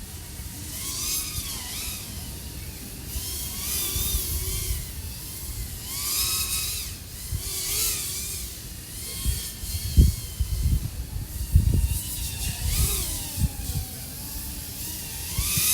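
Small FPV quadcopter's brushless motors and propellers whining, the pitch gliding up and down as the throttle changes, with a loud surge every couple of seconds. Low rumble and a few thumps from wind buffeting run underneath.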